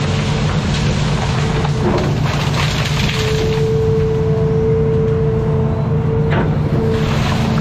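Hitachi Zaxis 210F amphibious excavator's diesel engine running under load with a steady whine that comes and goes, as the boom pushes through brush; branches crack and snap about two seconds in and again near the end.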